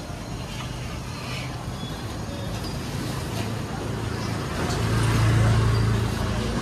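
A motor vehicle's engine rumbling past on the road, growing louder to a peak about five seconds in and easing off at the end, over general street noise.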